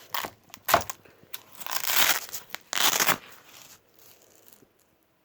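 Handling noise from the SKS's nylon stripper-clip pouch: a few short rustles, then two longer ripping rasps about two and three seconds in.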